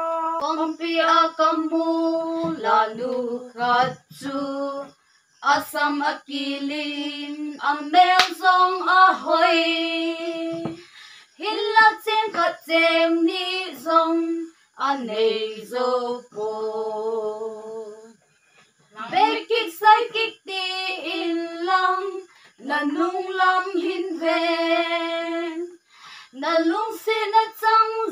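Women singing a song together without instrumental accompaniment, in long held notes phrased with short breaks. A few sharp clicks fall between the phrases.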